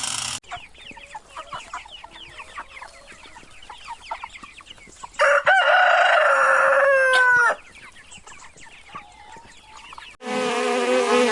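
Chickens clucking in many quick, short calls, then a rooster crows once, loudly, for about two seconds, ending in a falling note. Near the end a different loud, buzzing sound begins.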